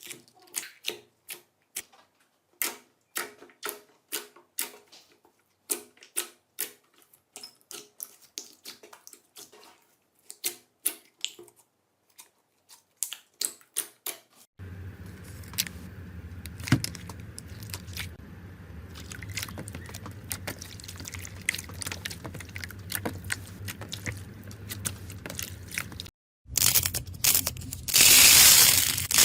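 Slime being pressed and worked by hand: a quick run of sharp crackles and pops, then softer wet clicks over a steady low hum, and near the end a loud wet squelching hiss lasting about two seconds.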